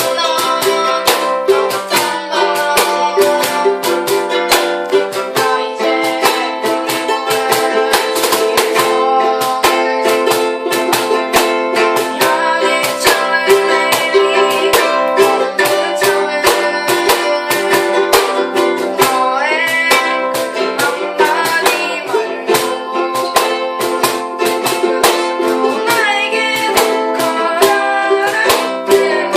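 Ukulele strummed in a steady rhythm, with singing over it.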